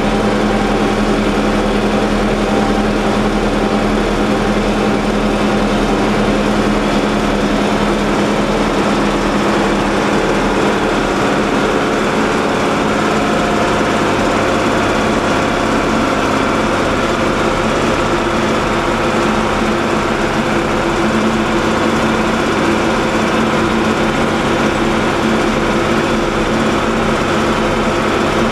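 John Deere 4020 six-cylinder tractor engine running steadily under load, pulling wagons up a road grade, heard from inside the cab.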